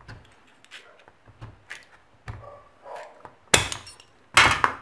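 Hand-held metal snips cutting a thin aluminium sheet into strips: small clicks and scrapes, then two loud cuts near the end.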